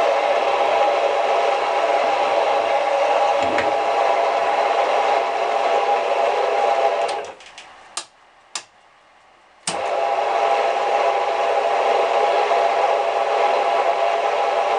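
Freshly repaired VSN R-20 bench drill press running at a higher speed setting with a steady hum of its motor and spindle. About halfway it stops, a few sharp clicks follow, and a couple of seconds later it is running again until the very end.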